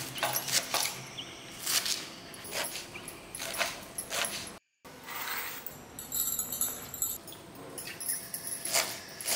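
Kitchen knife chopping leafy greens on a wooden cutting board: irregular sharp knocks of the blade against the wood, with a brief dead break about halfway through.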